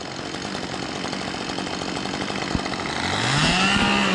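A chainsaw running steadily, then revving up sharply about three seconds in and holding at high revs.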